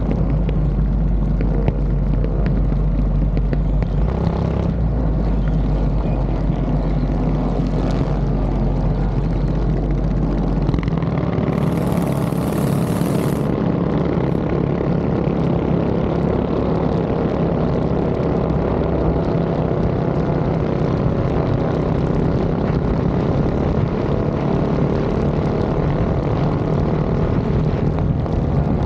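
Minibike engine running steadily at cruising speed, with wind rushing past.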